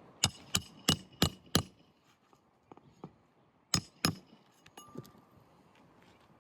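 Hammer striking roofing nails to fasten a replacement shingle. There are five quick strikes, about three a second, then two more a couple of seconds later, each with a short metallic ring.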